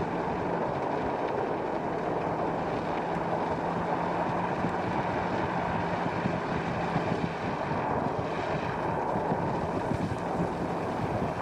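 Steady driving noise from a moving vehicle: a constant low engine hum under a wash of road and wind noise.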